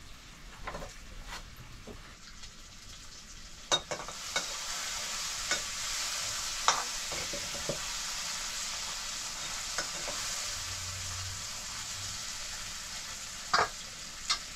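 Food sizzling in hot oil in a pan, the sizzle growing louder about four seconds in, while a metal spoon stirs and knocks against the pan every second or two.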